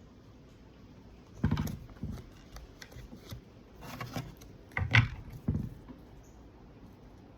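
Irregular knocks and clicks of something being handled, with low thumps about one and a half seconds and five seconds in, in a small room.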